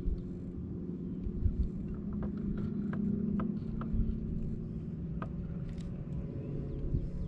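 Steady low hum of a small motor, louder and a little higher from about two seconds in to nearly four, with scattered light clicks and a few dull knocks.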